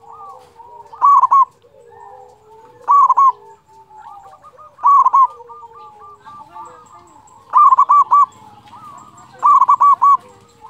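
Zebra dove (perkutut) cooing: five loud phrases, each three or four quick notes, repeated about every two seconds, with fainter bird calls in between.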